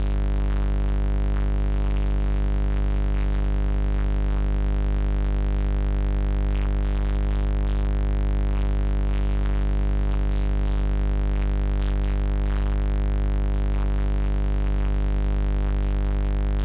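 Loud, steady electronic drone: a deep hum with a stack of held tones above it, unchanging throughout, played through a church sound system.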